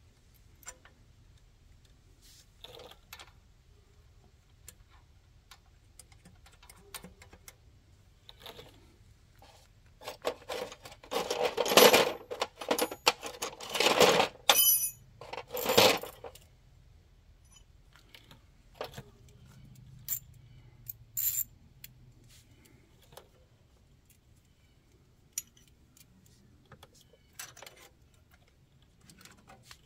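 Metal bolts and hand tools clinking and clattering against metal during reassembly of the clutch shaft on a Ferguson TO20 tractor. Scattered sharp clicks, with a louder run of clattering and scraping about a third of the way in.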